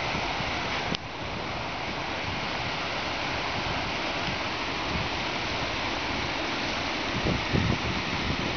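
Steady rushing of water pouring over a dam spillway, with wind buffeting the microphone in low bumps near the end.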